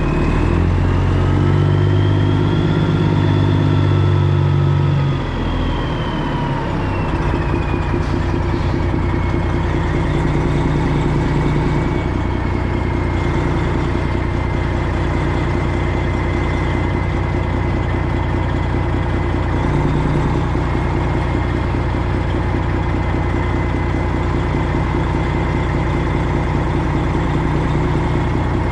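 Semi truck's diesel engine running, louder for the first few seconds with a high whine rising and falling over it, then settling to a steady idle.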